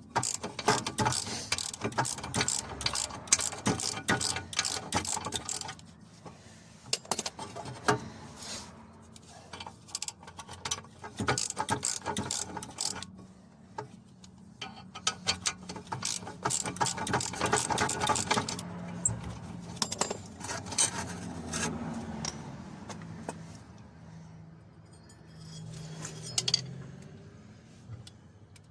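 Hand ratchet wrench clicking in rapid runs, working bolts on the car's brakes, with pauses and odd metallic clicks between runs.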